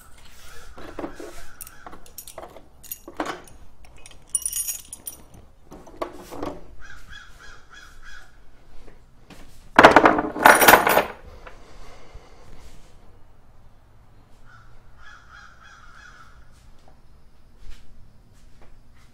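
Metal hand tools being picked up and put away: irregular clinks and knocks, with a loud double clatter about ten seconds in. There are short grating sounds around seven and fifteen seconds in.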